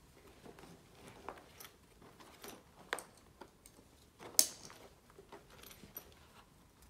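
Straps and buckles on a roll-up rescue stretcher being handled and pulled tight: faint rustling with scattered clicks, the sharpest about four and a half seconds in.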